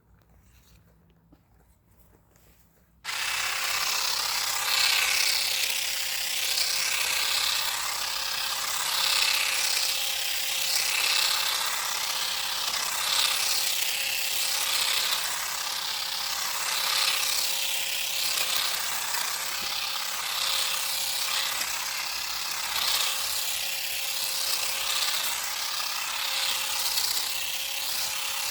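Parkside PGSA 4 A2 cordless grass and hedge shears switch on about three seconds in, the small motor and reciprocating blades running steadily with a constant hum. The sound swells and eases about every two seconds as the blades cut through climbing ivy.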